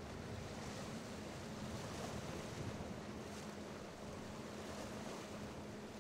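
Ocean waves washing at a coastal inlet, with wind buffeting the microphone and a steady low hum underneath.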